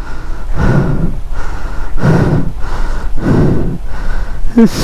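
A person breathing hard close to the microphone, quick loud breaths about every 0.7 s, with a short vocal gasp near the end.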